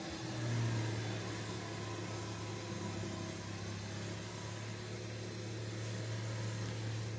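A steady low mechanical hum, like a motor or engine running, coming in just after the start and holding one pitch throughout.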